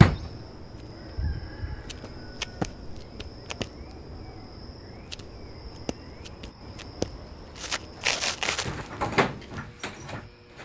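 One hard knock on a wooden door, then scattered small knocks and taps, possibly footsteps, over a steady faint high tone. Near the end comes a short run of harsh, noisy sounds, the loudest part after the knock.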